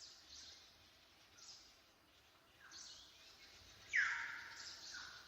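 Forest ambience of birds calling: scattered high chirps, then a louder call falling in pitch about four seconds in, followed by another shorter falling call.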